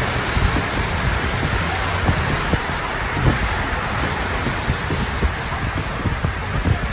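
Steady rushing of water in a flash flood, with a deep, uneven rumble underneath.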